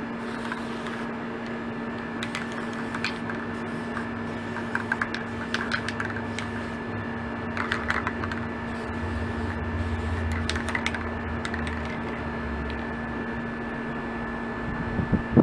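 Aerosol spray paint can sprayed in a few short bursts and handled, with scattered clicks, over a steady machine hum.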